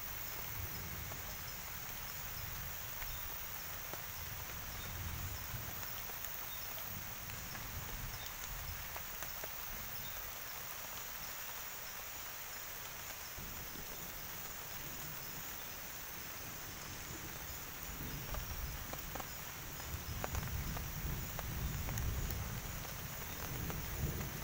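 Steady rain pattering in a forest, with low rumbling that grows stronger from about eighteen seconds in.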